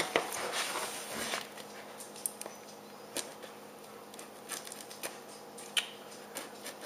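Kitchen knife cutting open a cardboard mailing box: a thump at the start as the box is set on the counter, then scratchy slicing and scraping through the tape and cardboard, with a few small clicks.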